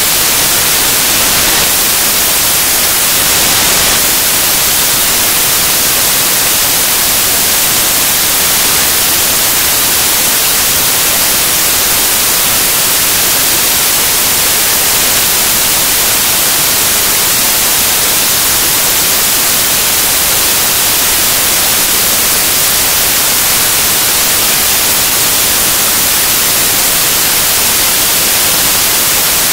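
Loud, steady static hiss, brightest in the high pitches, with no other sound heard through it.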